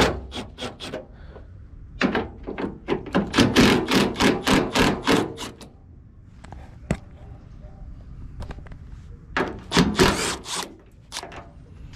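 Rapid knocking and thunking of hand tools on metal, in three bursts with quieter gaps, and a single sharp knock in between.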